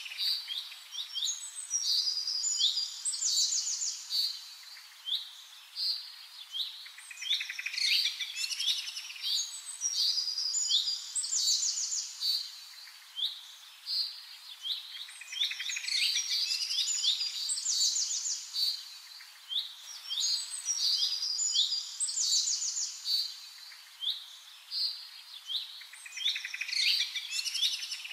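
Birds chirping and singing: many short sweeping notes and quick trills, coming in bursts every few seconds.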